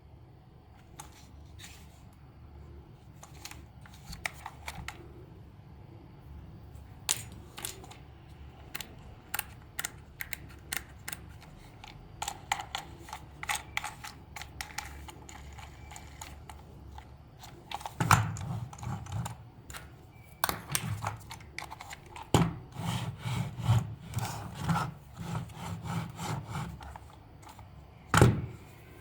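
Close-up handling of small hard objects and tools: scattered clicks, taps and rubbing or scraping. The taps grow busier after the middle, with a few heavier knocks, one about two-thirds of the way in and one near the end.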